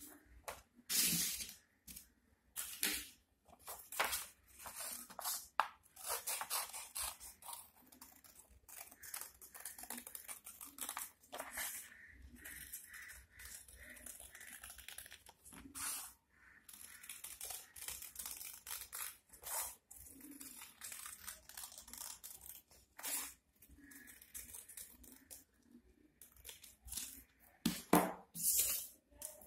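Scissors cutting a circle out of a sheet of paper: a long run of short, irregular snips, with the paper rustling as it is turned.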